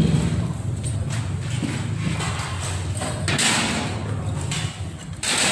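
Charred debris being gathered off a burnt floor: rustling scrapes and thuds as debris is handled and dropped into plastic crates, with a scratchy patch about halfway and another near the end, over a steady low hum.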